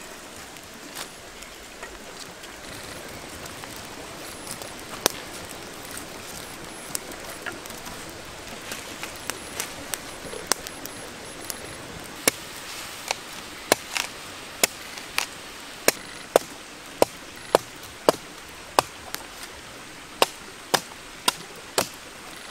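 Knife chopping on a board. A few scattered strokes come first, then steady strokes at about two a second from about halfway in, over a steady background hiss.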